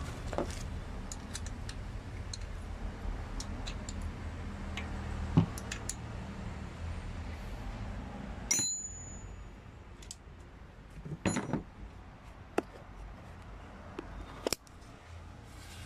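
Scattered light metallic clicks and clinks over a steady low hum, the sharpest about five seconds in; the hum drops away suddenly about halfway through.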